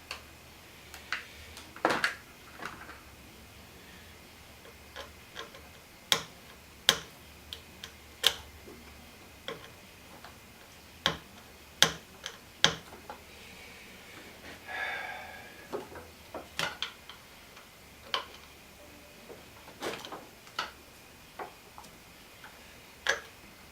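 Irregular sharp clicks and light taps of wires and small hand tools being handled during soldering of a wiring-harness splice, with a brief soft noise about two-thirds of the way through.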